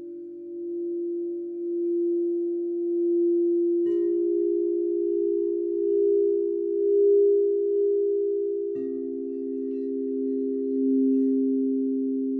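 Crystal singing bowls ringing in long, overlapping pure tones that swell and fade. A higher bowl comes in with a soft strike about four seconds in, and a lower one about nine seconds in, layering over the tones still sounding.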